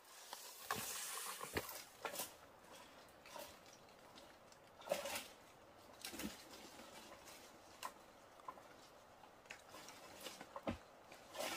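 Dry leaves and undergrowth rustling for about the first two seconds, then scattered faint snaps and crackles of twigs and leaf litter.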